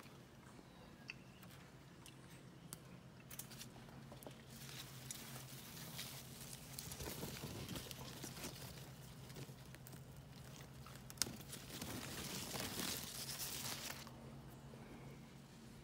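Tomato plant leaves and stems rustling and crackling as a hand works through the vine and picks ripe tomatoes, louder in the second half, with one sharp click about eleven seconds in. A faint steady low hum lies underneath.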